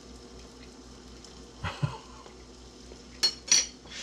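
Kitchen handling sounds: two soft knocks about halfway through, then two sharp, briefly ringing clinks of utensils or dishes near the end, over a faint steady hum.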